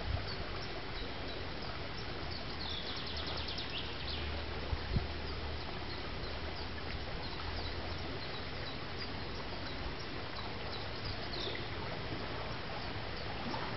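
Lockside outdoor ambience: a steady background rush, with small songbirds chirping now and then and one rapid trill about three seconds in. A faint low engine hum sits underneath for the first half, and there is a single dull thump about five seconds in.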